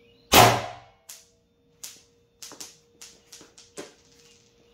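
A single shot from a Valken M17 air-powered launcher firing a Grimburg round: one sharp crack about a third of a second in that rings out for about half a second. Several light clicks and taps follow over a faint steady hum.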